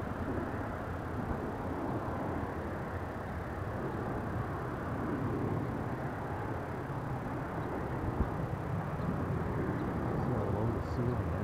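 Distant jet roar of a CF-18 Hornet's twin turbofan engines as the fighter flies past, a steady low rumble that grows slightly louder in the second half.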